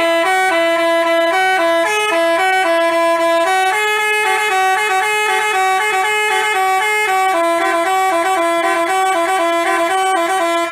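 Basuri telolet bus horn playing a melody. Two or three horn notes sound together and step from pitch to pitch without a break.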